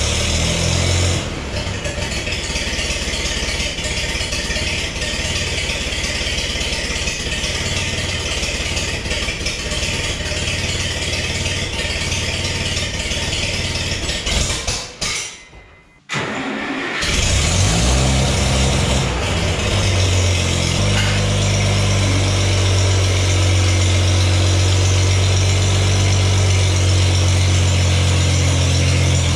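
Old tractor engine, freshly started, idling to let it warm up and charge its weak battery. After a short break about halfway, it settles into a steady, even low idle.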